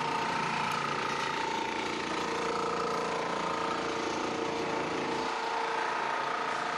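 Steady machinery noise on a construction stage: a constant hiss with a few held hums over it, easing a little about five seconds in.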